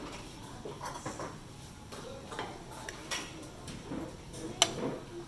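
Metal serving tongs clicking and clinking against stainless steel buffet trays as food is lifted onto a plate, a scattering of small clicks with one sharper clack about four and a half seconds in.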